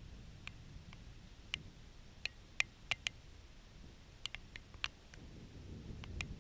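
First raindrops ticking against a GoPro's waterproof housing: about a dozen sharp, irregular clicks over a faint low rumble.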